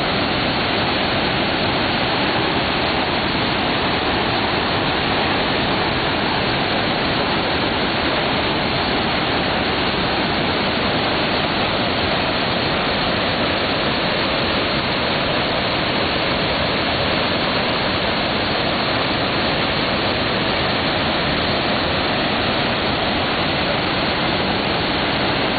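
Waterfall: water falling and rushing in a steady, loud roar that does not change.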